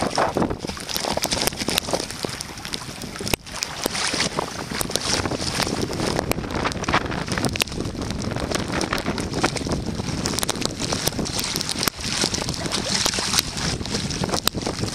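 Blizzard wind buffeting the microphone: a dense rushing noise full of crackles, with brief lulls about three and twelve seconds in, and water splashing around a kayak.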